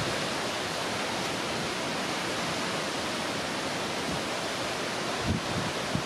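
Strong wind over a rough, whitecapped sea: a steady rushing hiss, with a couple of low gusts buffeting the microphone near the end.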